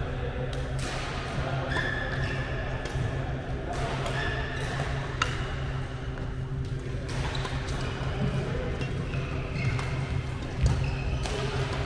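Badminton rackets repeatedly striking a shuttlecock in a fast 2-on-1 drill rally, short sharp hits about a second or less apart, with brief shoe squeaks on the court floor over a steady low hum.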